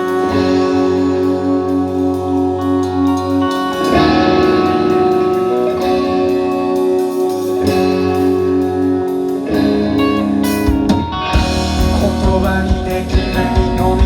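Band music without vocals: guitar chords ringing out over bass and light drums, then the full drum kit comes in with heavy, punchy hits about ten seconds in.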